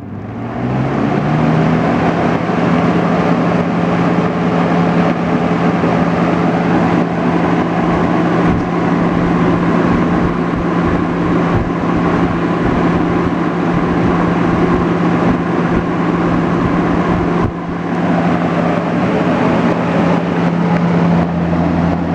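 A 1972 Galaxy 3714 box fan with an RMR motor and plastic blade, running on high speed. It comes up to speed over the first second or so, its motor hum rising in pitch, then settles into a steady rush of air over a low hum.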